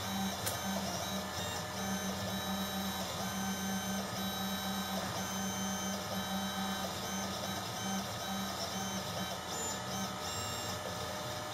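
Desktop CNC engraving machine running: its stepper motors whine in short pitched stretches that start and stop every half second or so as the axes make their moves.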